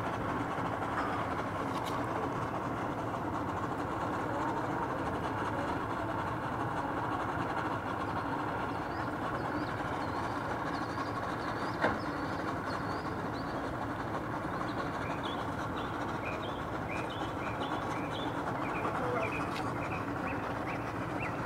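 Twin V250 outboard motors idling, a steady rumble, with birds chirping over it in the second half and one sharp knock near the middle.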